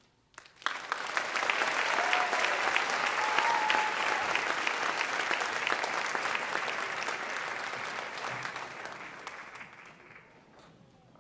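Audience applauding: clapping breaks out about half a second in, holds steady, then fades away near the end.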